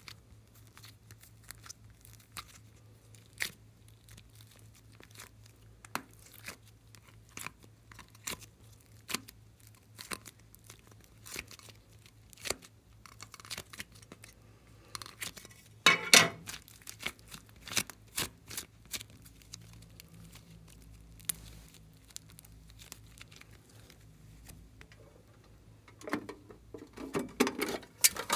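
Hands working soft clay out of a thin plastic heart-shaped case: scattered small clicks and crackles of the plastic. There is a louder burst of handling about halfway through, and a cluster of crinkling plastic near the end.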